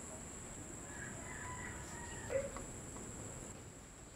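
Quiet background with a faint, steady high-pitched whine and a few faint bird calls between about one and two and a half seconds in.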